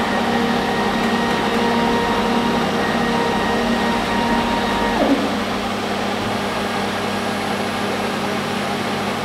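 Water jet cutting machine running with a steady mechanical noise, its cutting head lowering toward the titanium plate. A motor whine rises just at the start, holds steady and drops away about five seconds in, as the head's travel stops.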